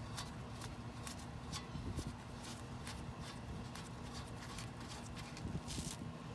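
Faint irregular metallic clicking as the already-loosened front brake caliper bolts are backed out with a 13 mm wrench, over a steady low hum.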